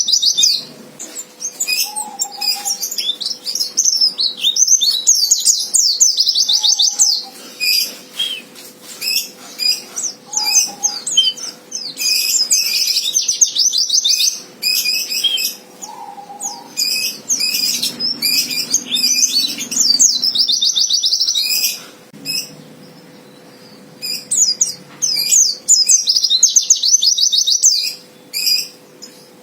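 White-eye (pleci) singing a loud 'fighter' song: very fast high trills in bursts of a second or two, repeated with short gaps and a few lower chirps between, an aggressive song used to provoke rival males into singing.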